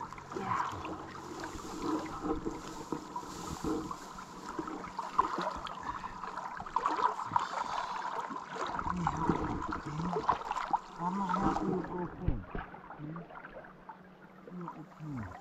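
Shallow river water splashing and gurgling around an angler's waders as a hooked sockeye salmon is handled and lifted from the shallows, with many small irregular splashes.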